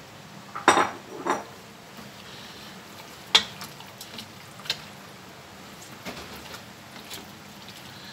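Silicone spatula stirring beef chunks in an aluminium pressure cooker, with several separate sharp knocks of the spatula against the pot. The loudest knocks come about a second in and at three and a half seconds.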